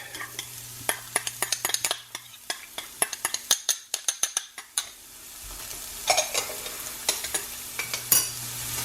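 Chopped onions and garlic sizzling in olive oil in a pan while a utensil stirs them, knocking against the pan in quick clicks, densest in the first half. The sizzle fades in the middle and picks up again near the end.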